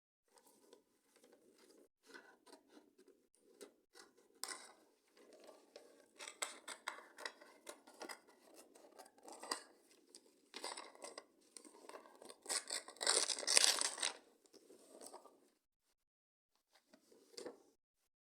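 Scissors cutting, a long run of quick snips that is loudest about thirteen seconds in and stops a few seconds before the end.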